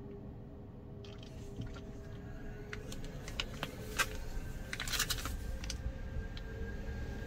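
Kia Bongo EV truck's electric drive sound as it pulls away slowly: a steady hum of a few tones, likened to an ice-cream truck, rising slightly in pitch as it moves off. A few short sharp noises stand out in the middle.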